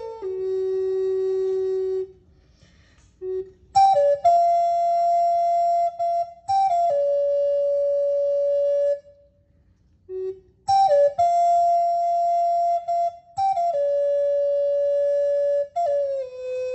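Wooden end-blown shamanic flute playing a slow melody of long held notes. The phrases last a few seconds each, with short pauses between them.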